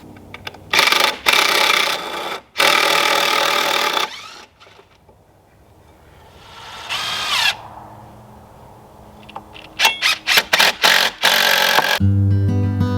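Power drill running in three bursts in the first few seconds, then one short rising spin-up, and later a quick run of clicks and a final burst.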